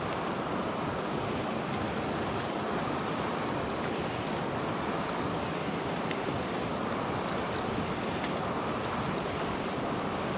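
Steady rush of running creek water, with a few faint scattered ticks.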